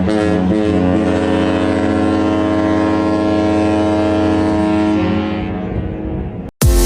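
Cruise ship horn holding one long, steady blast that fades out about five seconds in. Near the end, after a brief cut to silence, background music with a beat starts.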